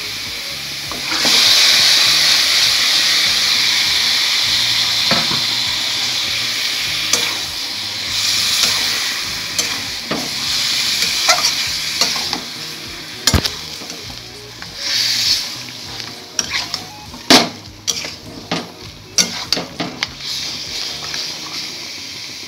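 Marinated chicken pieces going into hot mustard oil in a metal kadai, setting off a loud sizzle about a second in that slowly dies down. From about halfway on, a metal spatula scrapes and clacks against the pan as the meat is stirred and fried.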